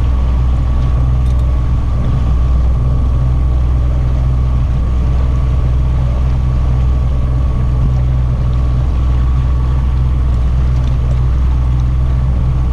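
Evinrude 90 outboard motor running steadily under way: a constant low drone with a thin, steady high whine over it.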